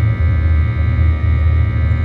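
Cabin noise of a Boeing 737-800 climbing out after takeoff, heard at a window seat beside the wing: the CFM56-7B turbofan runs with a loud, steady low rumble and a steady whine of several high fan tones over it.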